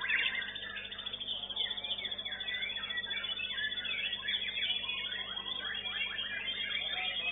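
White-rumped shamas (murai batu) singing in competition: many rapid, varied whistled phrases, trills and glides overlapping without pause.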